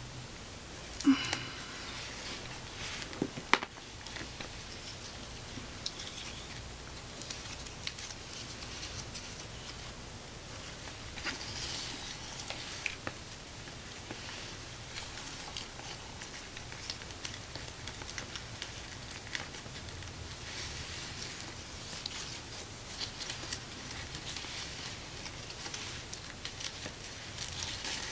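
Light rustling and handling of a feather-boa strap and a shoe, with scattered small clicks; the sharpest clicks come about a second in and again at about three and a half seconds.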